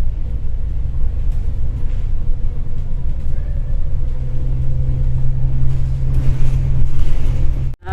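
Low rumble of a moving road vehicle, with a steady low hum joining about halfway through. The sound drops out abruptly just before the end.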